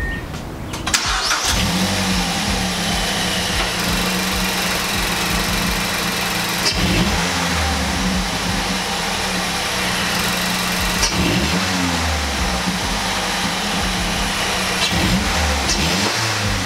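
Mazdaspeed 3's 2.3-litre turbocharged four-cylinder, fresh from a Corksport Stage II short ram intake install, cranks and starts about a second in, then runs steadily at idle with a few short throttle blips.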